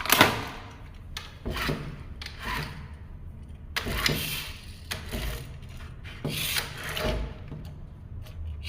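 Toy police car being handled: a series of short scraping, rubbing swishes.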